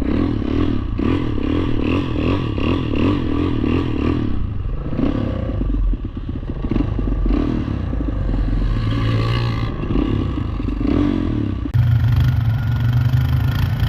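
Quad (ATV) engine revving up and down unevenly with some clatter, as the stuck machine works to pull free. About twelve seconds in, the sound switches abruptly to a steadier, lower engine note.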